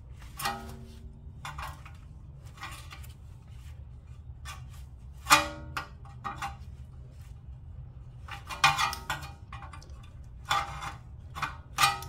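Hand tools striking and clinking on steel, a handful of sharp metallic clanks that ring briefly, the loudest about five seconds in, with softer clinks between. This is a bent metal part on the BMW's front suspension being worked back into shape.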